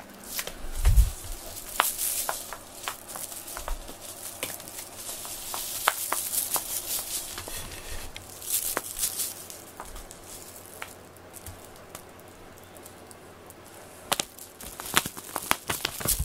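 Rustling, scattered clicks and light pattering of a cat at play with a string teaser toy, with a soft thump about a second in; the sounds come in busy spells and ease off for a few seconds before picking up again near the end.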